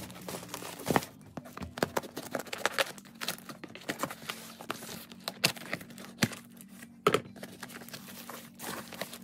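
Cardboard shipping box being cut and torn open by hand: a run of scrapes, rips and crinkles of cardboard and packing tape, with sharp cracks about a second in and again near 7 s.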